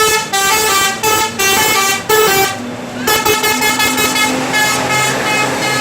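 Bus 'telolet' musical horn playing a quick tune of short notes in two runs, with a short break about two and a half seconds in, and a steady low hum underneath the second run.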